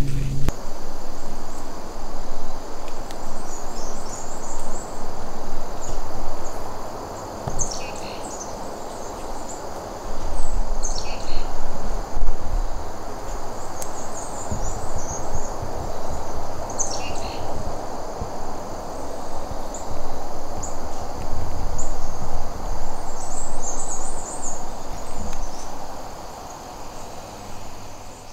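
Woodland ambience: a steady rushing noise that swells and fades, with small birds chirping high over it and a few short falling calls. A thin, steady high insect drone runs underneath.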